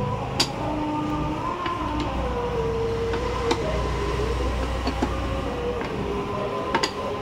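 A steady mechanical hum whose pitch wavers slowly up and down, with a few sharp metallic clicks scattered through it as a T-handle socket wrench turns a bolt on an aluminium motorcycle crankcase.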